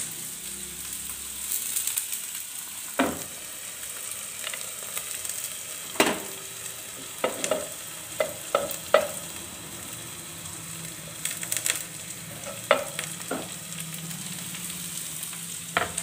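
Cumin and garlic sizzling steadily in hot oil in a pan, with a knife chopping coriander and green chilli on a wooden cutting board in about ten sharp, irregular knocks.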